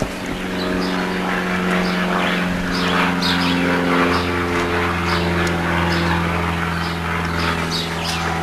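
A steady low mechanical drone with a few tones that drift slightly in pitch, its deepest part growing stronger about halfway through, with short high chirps scattered over it.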